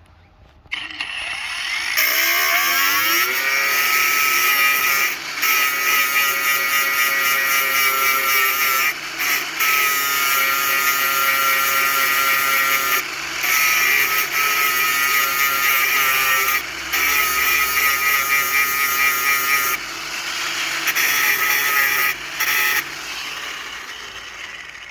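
Angle grinder spinning up to a steady high whine, then grinding steel. The whine dips briefly several times as the disc is pressed into the work, and the grinder winds down near the end.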